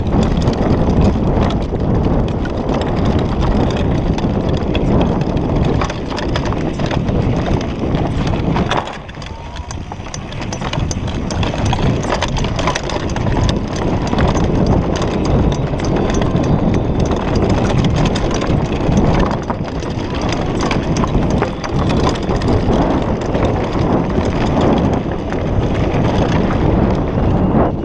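Downhill mountain bike rolling fast over a rough dirt and gravel trail, heard from a camera mounted on the rider: a constant rattle and clatter of the frame, chain and tyres over bumps, over a low rumble. It eases briefly about nine seconds in, then picks up again.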